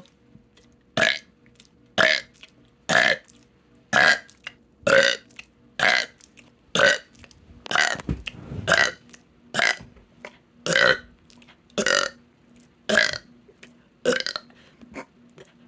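A woman burping over and over, short separate burps about once a second, some fifteen in all. She puts the gassiness down to her medicine and says the burps come on their own, without swallowing air first.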